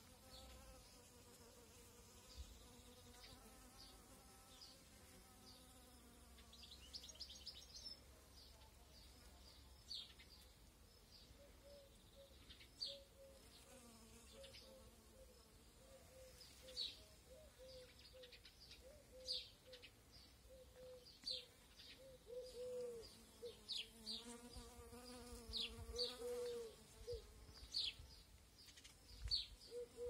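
Faint buzzing of a flying insect such as a bee or fly, steady in pitch but wavering as it moves about. Small birds chirp with short, quick, high notes, starting about a third of the way in and coming more often toward the end.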